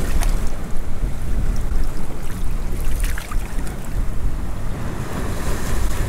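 Sea surf washing over shore rocks, with wind buffeting the microphone and making a heavy low rumble.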